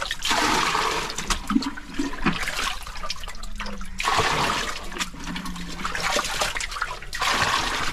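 A plastic bucket scooping and sloshing muddy water in repeated splashy gushes, about four in all: bailing out the last water in a draining well.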